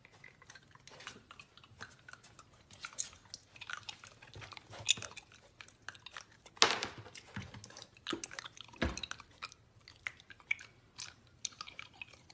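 Mini pig chewing a peppermint with its mouth open, a run of irregular crisp crunches and smacks, the loudest about five and seven seconds in.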